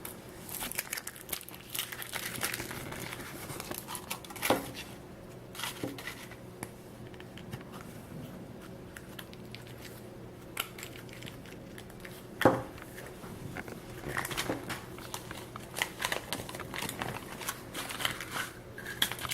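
Foil wrapper of a Kinder Surprise chocolate egg being torn and crinkled as it is unwrapped, with a sharp snap about four seconds in and a louder one about twelve seconds in.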